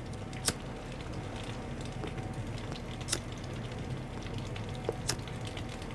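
A Bic lighter flicked three times, sharp clicks spaced a couple of seconds apart, while a tobacco pipe is puffed alight with a faint crackle, over the steady low hum of an electric heater.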